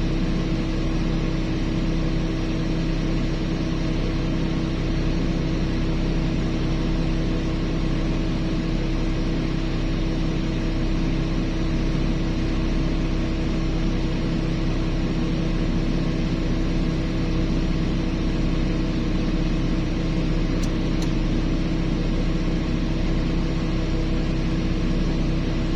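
Heavy diesel engine of mining machinery running steadily, with a constant drone and hum that does not rise or fall.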